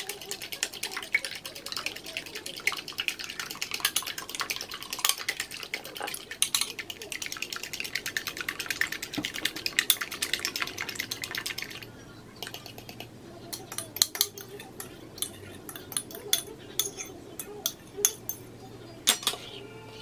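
Fork beating eggs in a ceramic bowl: rapid clicking and scraping against the bowl. About twelve seconds in it slows to sparser taps as the mixture is stirred.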